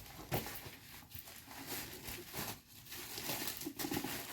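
Cardboard box and packaging being handled: rustling and crinkling with a few soft knocks and scrapes.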